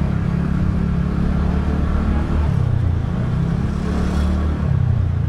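TVS Ntorq 125 scooter's single-cylinder four-stroke engine running while riding, a steady low hum whose pitch wavers slightly with the throttle, over road and wind noise.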